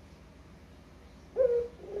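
Barbary dove (puter) cooing: a short note about a second and a half in, then a longer coo starting near the end.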